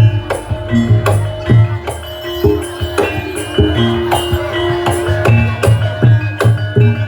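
Barongan accompaniment music in Javanese gamelan style: drum strokes and struck metal tones ringing in a quick, steady rhythm over a low hum.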